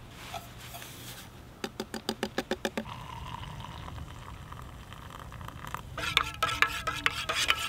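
A quick run of clicks, then hot water poured from a Jetboil MiniMo cooking pot into a metal mug. Near the end a spoon stirs the coffee, clinking repeatedly against the mug's ringing metal sides.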